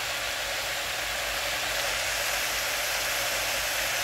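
Spinach leaves sizzling steadily in hot oil in a pot as they wilt, a constant even hiss.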